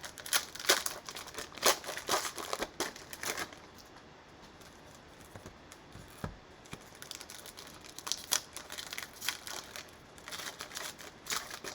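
Cellophane wrapper of a basketball card cello pack crinkling and tearing as it is opened, in two spells of crackling with a quieter stretch between them. A single soft knock about six seconds in.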